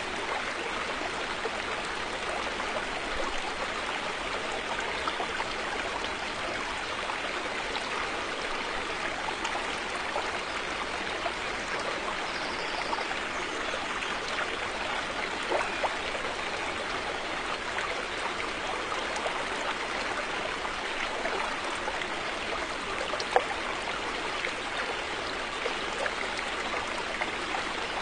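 River water flowing steadily, a continuous rush with small splashes and trickles scattered through it, and one sharper splash about 23 seconds in.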